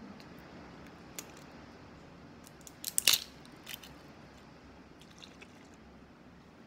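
Small sharp plastic clicks and crackles as the cap of a green plastic skin-care bottle is twisted and handled, a single click about a second in and a louder quick cluster of clicks about three seconds in.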